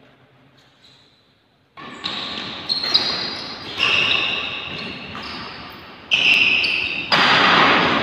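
A badminton doubles rally on an indoor court: shoes squeaking on the floor and rackets hitting the shuttlecock, echoing in the hall. It starts about two seconds in after a quiet moment and grows louder near the end.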